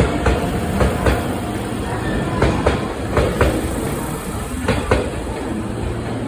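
JR Shikoku 8000 series electric train rolling slowly through the station: a steady rumble with the wheels clacking over rail joints in close pairs as each bogie passes, a few times over.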